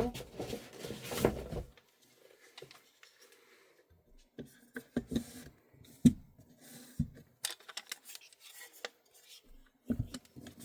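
Handling noise from a gas-blowback airsoft rifle being picked up and handled: a rustle through the first two seconds, then scattered light clicks and knocks, the sharpest about six seconds in.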